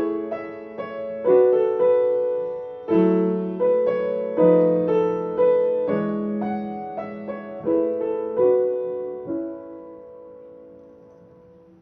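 Piano playing the closing bars of a gentle piece in chords. The final chord is struck about nine seconds in, rings on and slowly dies away.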